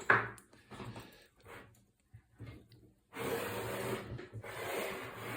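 Handling noise from a Hammond 1 typewriter being turned around: a knock at the start and a few faint clicks. From about three seconds in comes a steady rustling noise.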